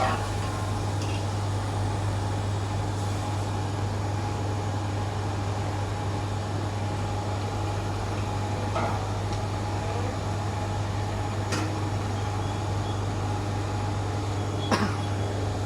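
Steady low hum of a chiller refrigeration unit running while it is charged with R404A refrigerant. Three short sharp metallic clicks come in the second half.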